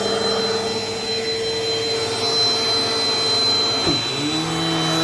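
Dirt Devil Dynamite Plus vacuum cleaner running with a steady motor whine. About four seconds in, its pitch dips sharply and then climbs back to a new note.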